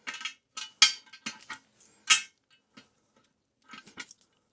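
Wrench clicking and clinking against a toilet closet-bolt nut and washer as the nut is turned down to hold the bowl to the floor: a dozen or so sharp, uneven metal clicks in short groups, with a pause in the middle.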